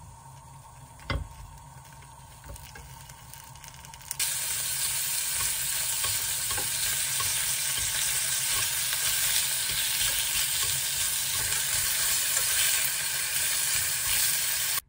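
Smoked duck slices frying in a pan: a quiet first few seconds with a single knock about a second in, then a loud, even sizzle that starts abruptly about four seconds in and holds steady as the slices are turned with wooden chopsticks.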